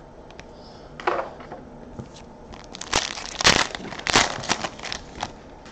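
Foil wrapper of a basketball trading-card pack crinkling as hands tear it open. It comes as a run of short crackly bursts, loudest in the middle.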